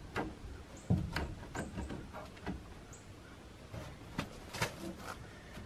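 Irregular light knocks, taps and scrapes of a wooden shutter being handled and pressed against a plank wall. Several short high bird chirps are heard now and then.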